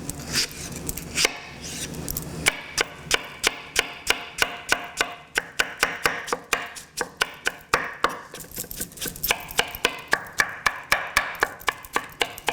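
Knife chopping on a cutting board, dicing cooked peach: a steady run of quick strokes at about four a second, sparser for the first couple of seconds.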